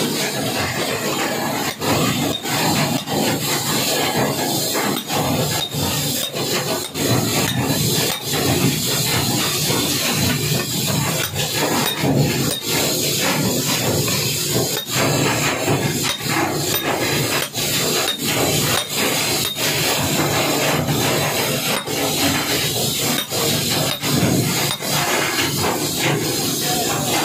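Hammer blows on a bar held against a jaw coupling hub, driving the hub onto an electric motor's shaft: many sharp taps at an uneven pace over a steady hiss.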